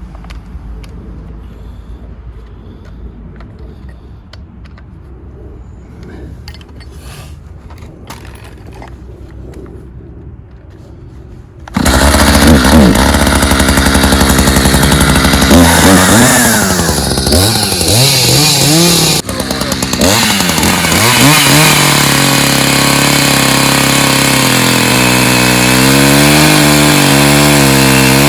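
Faint handling noises, then a gas chainsaw starts suddenly a little under halfway through. It revs up and down for several seconds and then runs steadily at high speed.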